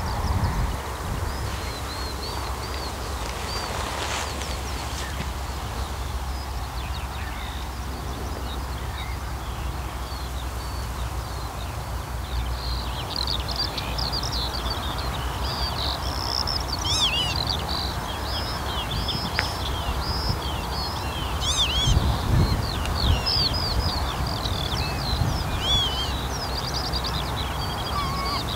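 Small birds calling in many quick, high chirps, a few at first and then many overlapping from about twelve seconds in, over a steady low rumble.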